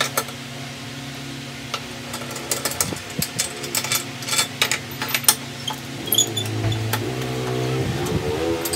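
Scattered sharp clicks and light knocks of a screwdriver and the scooter's plastic rear body panel as its screws are undone and the panel is worked loose, over a steady low hum.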